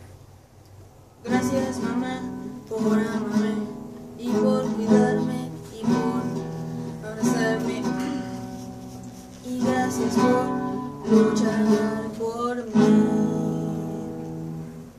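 A boy singing a song while strumming an acoustic guitar, with a strong strum about every second and a half; the playing and singing start about a second in after a quieter moment.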